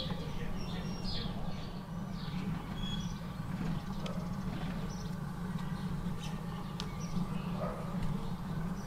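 Outdoor background sound: a steady low rumble, with a few short bird chirps in the first three seconds and scattered faint clicks later.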